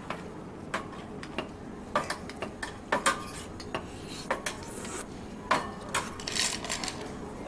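An irregular run of light clinks and clicks from small hard objects, with a short hissy rustle near the end.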